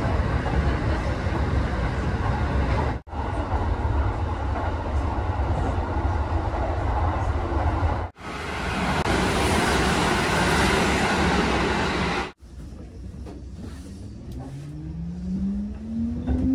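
Running noise heard inside a Kintetsu two-car local electric train: a steady rumble of wheels on rail, in short clips spliced together. In the last few seconds it is quieter, and a motor whine rises in pitch as the train gathers speed.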